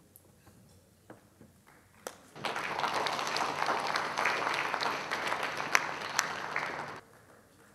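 Audience applauding in a hall. It starts about two seconds in, carries on evenly for four and a half seconds and cuts off suddenly.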